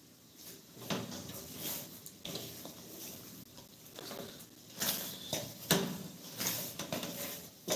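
A metal pan being scrubbed and handled in a kitchen sink: irregular scraping and rubbing, with a few sharper metal clatters in the second half.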